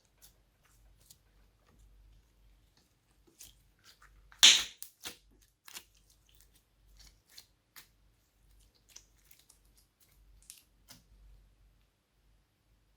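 Glossy slime being mixed and squished by hand: a string of small sticky clicks and pops, with one much louder pop about four and a half seconds in.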